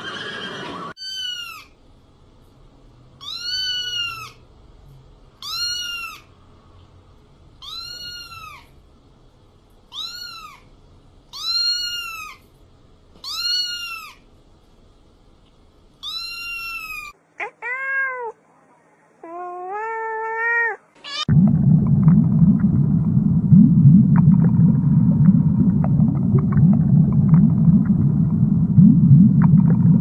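A cat meowing: about nine short, high-pitched, rising-and-falling meows spaced a second or two apart, followed by two lower, longer calls. About two-thirds of the way through this gives way to a loud, steady low underwater rumble.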